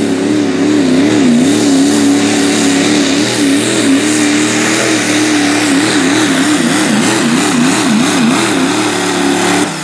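Chevrolet Silverado pulling truck's turbo diesel engine running flat out under load as it drags a weight-transfer sled down the track, its pitch wavering up and down. It cuts off suddenly near the end as the throttle is let off.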